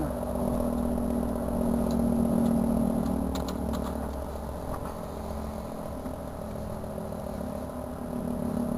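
Federal 2T22 outdoor warning siren sounding a steady two-tone chord. The level dips slightly around the middle and rises again near the end.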